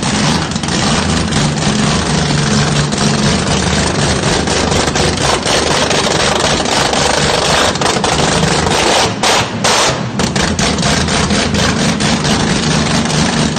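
Heavily modified turbocharged car engine running loud and rough at a steady idle, with rapid popping and crackling throughout, typical of an anti-lag system.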